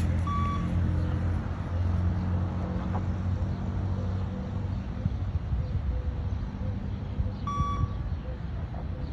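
Beep test signal sounding twice, two short identical electronic beeps about seven seconds apart, each marking the end of a 20 m shuttle, over a steady low hum.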